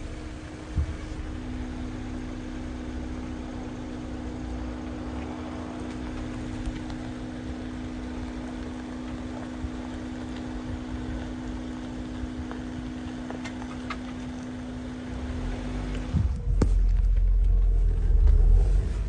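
Vehicle engine idling with a steady hum, then a much louder low rumble in the last few seconds.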